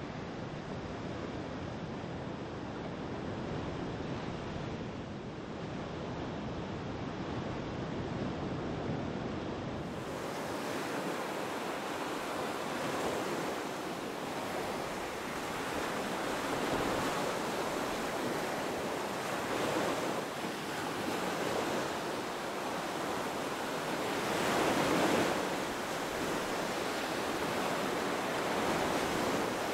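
Wind blowing across the microphone, a steady rushing that swells in gusts and turns hissier about ten seconds in.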